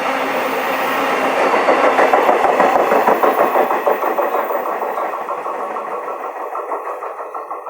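Freight train wagons rolling past on the track, their wheels making a rapid rhythmic clatter that is loudest about two to four seconds in and then fades away as the train recedes.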